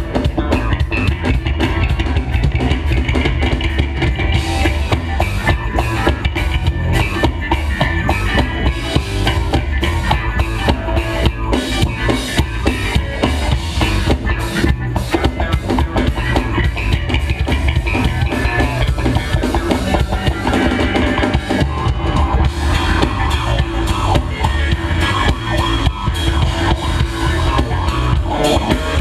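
Live funk band playing, with drum kit and guitar over a heavy low end and a steady beat, recorded from within the crowd on an action camera.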